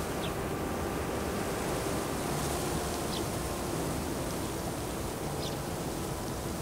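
A steady rushing noise, with a few faint, short high chirps.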